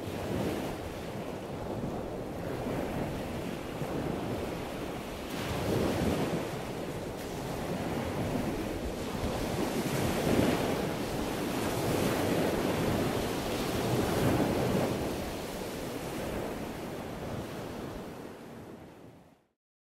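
Ocean surf washing in and out, the rushing noise swelling every few seconds, fading out near the end.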